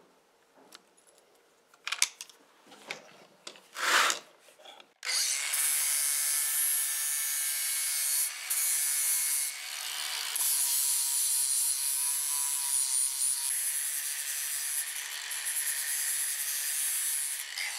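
A few knocks and rubs from steel pliers being handled, then about five seconds in an angle grinder starts abruptly and runs steadily, its disc grinding the hardened steel jaw tips of a pair of pliers.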